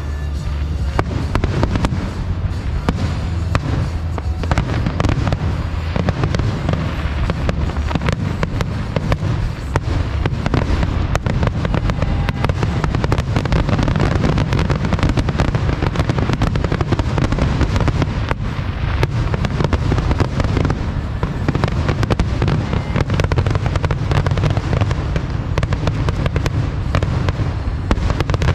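Fireworks going off in a dense, continuous barrage of bangs and crackles over a deep rumble.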